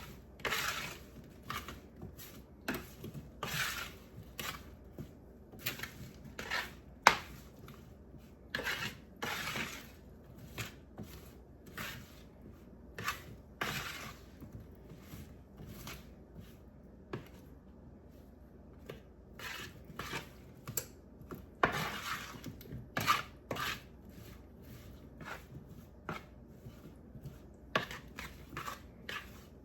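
Oiled, seasoned potato pieces being tossed on a baking sheet to coat them, a utensil scraping and clinking against the pan in an irregular run of short scrapes and taps.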